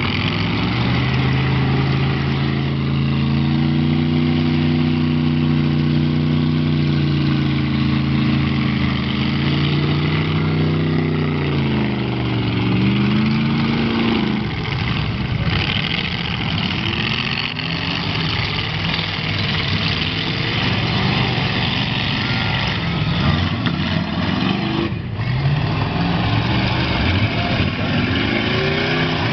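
Demolition derby cars' engines running hard and revving, the pitch climbing and falling again and again, over a dense wash of engine and crowd noise.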